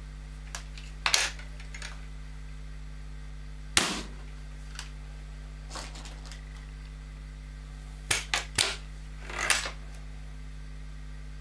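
Several sharp mechanical clacks from a Weihrauch HW95 .25 break-barrel spring air rifle being worked. The loudest come about a second in, near four seconds and at about eight and a half seconds, with a quick cluster of clacks near the end.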